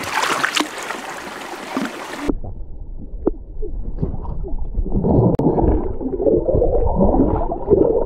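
Stream water running, then from about two seconds in a muffled, gurgling and bubbling sound of water heard through a camera held underwater, louder from about five seconds in.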